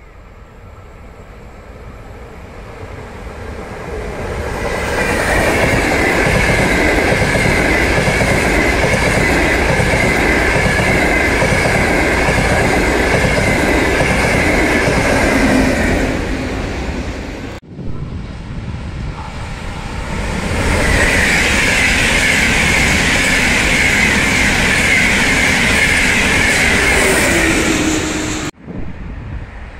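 Frecciarossa high-speed electric train passing close by at speed: it builds over a few seconds into a loud rush with an even rhythmic clatter of wheels over the track and a high steady whine, then cuts off abruptly. A second equally loud train pass follows and ends in another abrupt cut.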